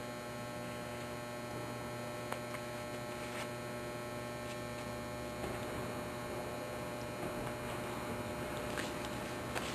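Steady electrical hum with several steady tones. A few faint, light ticks come through now and then.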